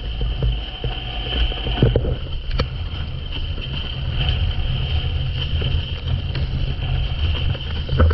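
Wind buffeting an action camera's microphone, with water rushing and splashing as windsurf boards plane over choppy sea.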